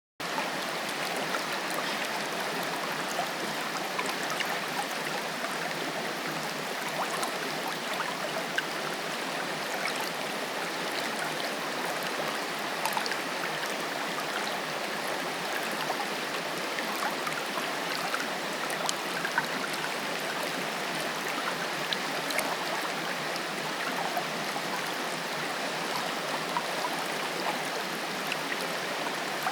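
Waterfall: a steady rush of falling water, with small splashes and droplets ticking through it.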